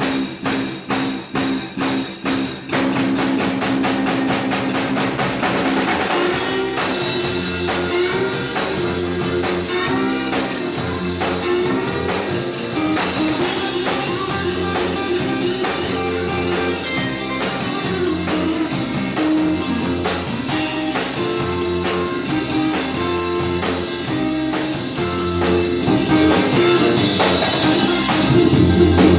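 Rock band playing with electric guitar and drum kit. The first few seconds are quick, even drum hits, about four a second, before the full band comes in; it grows louder near the end.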